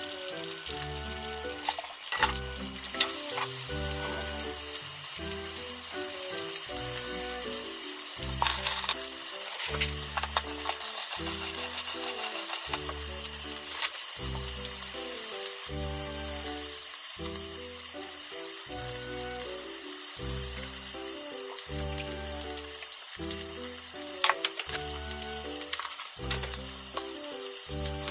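Hot oil sizzling steadily as eggs fry sunny-side up and sliced pork fries in a second pan, with a few sharp clicks of utensils or food going into the pans. Background music with a steady beat plays under it.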